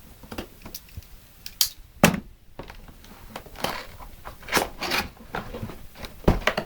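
Cardboard box being opened and handled: flaps and cardboard rustling and scraping, with sharp knocks and thumps, the loudest about two seconds in and another near the end.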